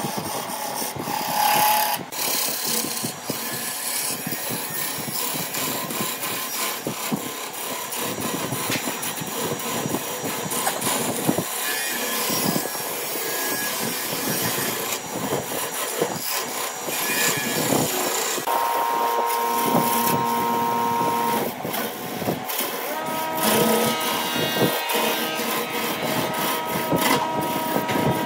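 Turning gouge cutting a vase-shaped blank spinning on a wood lathe: a continuous rough scraping and shaving of wood as chips are peeled off.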